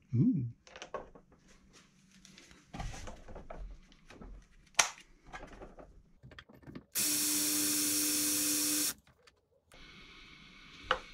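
Cordless drill running at a steady speed for about two seconds, its bit pressed into the robot mower's steel wheel axle shaft. The shaft turns out to be hardened and the bit makes no headway. Scattered clicks and knocks of handling the drill and hub come before it.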